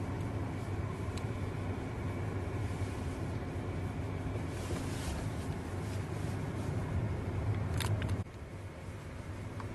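Car running along a snowy road, heard from inside the cabin: a steady low engine hum with tyre and road noise. A short click comes just before eight seconds in, and then the engine hum drops suddenly.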